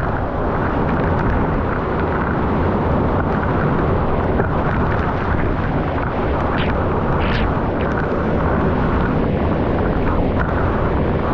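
Waterfall roaring, a loud steady rush of falling water with no break.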